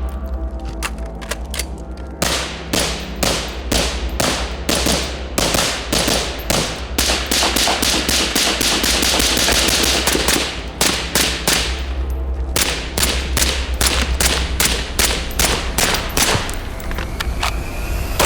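Suppressed .223 AR rifle fire, dozens of shots in quick strings with short pauses, running together in the fastest string near the middle. A steady low drone sits underneath.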